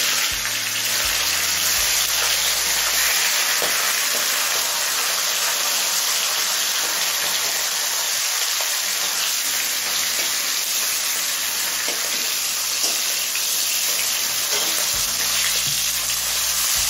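Hilsa fish heads sizzling steadily in hot mustard oil in a kadai, with a few scattered spatter pops.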